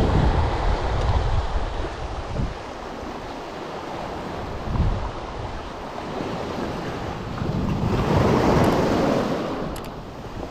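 Sea waves washing in over a pebble and boulder shore, with wind rumbling on the microphone in the first couple of seconds. The wash swells to its loudest about eight seconds in, then falls back.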